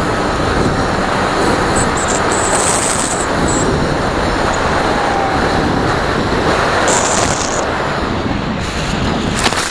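Steady rush of airflow and motor noise picked up by an RC model airplane's onboard camera as it flies low over grass. Near the end comes a sharp knock as the plane comes down into the grass, and then the sound cuts off abruptly.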